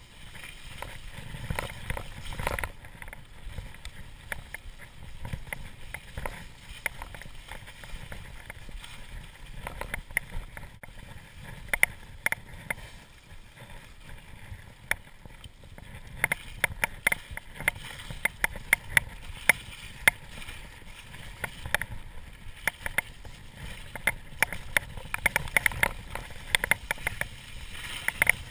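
Mountain bike riding over a wet, muddy, slushy trail: tyres running through mud and slush with a steady rumble, and the bike rattling and clattering over bumps in many sharp knocks that come thicker in the second half.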